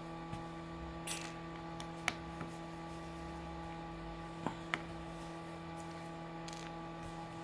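Steady electrical hum with a few scattered light clicks of small tools on a Samsung Galaxy S7 edge's frame as its screws are taken out.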